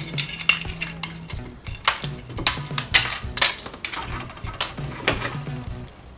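Metal parts of a disassembled vacuum cleaner motor being handled: a run of irregular clinks, scrapes and knocks.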